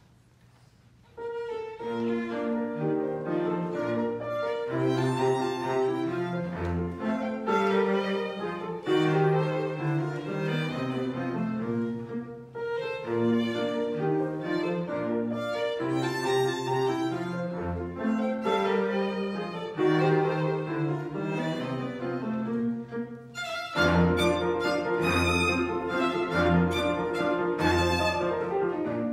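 Live recital music: a bowed string instrument playing a continuous melodic passage, beginning about a second in after a moment of quiet. It breaks off briefly near the end and comes back louder.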